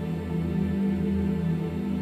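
Ambient electronic synthesizer music: a low, pulsing drone with sustained tones above it.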